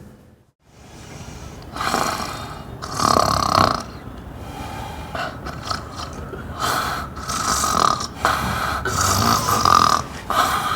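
A person snoring loudly: a run of rasping snores one after another, uneven in length and spacing, starting about two seconds in.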